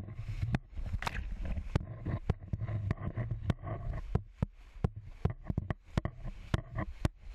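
Inflatable raft running whitewater rapids: waves splashing and slapping against the boat and spray hitting the camera, many sharp irregular splash hits over a steady low rumble.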